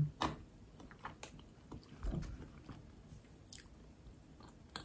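Quiet close-up mouth sounds of biting into and chewing a chocolate truffle, with small wet clicks and a soft low thump about two seconds in.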